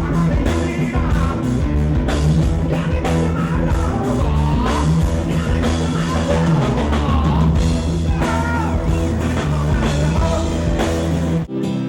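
A live rock band playing with electric guitar, drums and a singer, until an abrupt cut near the end to a thinner, quieter passage.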